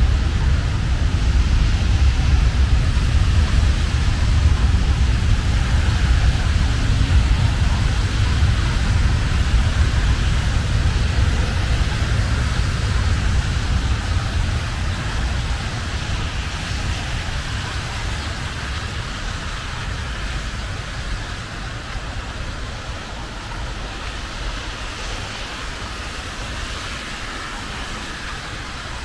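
Steady rush of road traffic with a heavy low rumble, easing off gradually through the second half.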